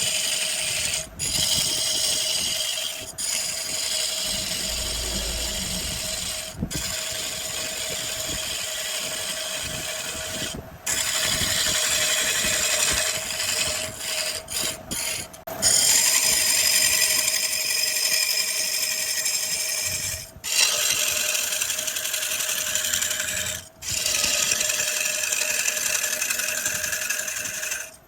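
Wood lathe running with a steady hum while a tool works the spinning wood with a continuous hiss. The sound breaks off abruptly for a moment several times.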